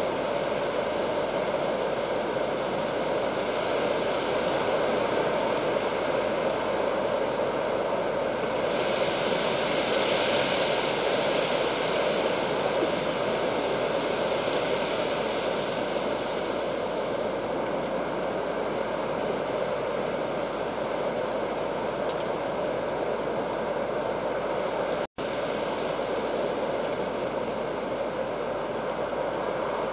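Steady rushing noise of stormy weather, swelling briefly about ten seconds in and cutting out for an instant near the end.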